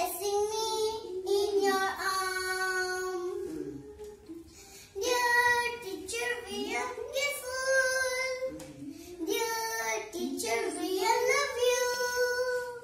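A young girl singing, holding notes that slide up and down, with a short break about four seconds in.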